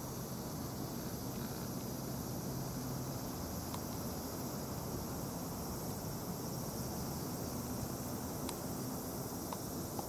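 Steady outdoor ambience with an even, high-pitched insect drone, a low hum for the first few seconds, and a few faint ticks later on.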